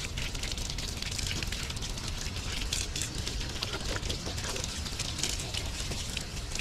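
Water from an outdoor garden tap running over a black chicken carcass as hands rub and rinse it, a steady rush of pouring water with many small splashes and drips onto the stone ground.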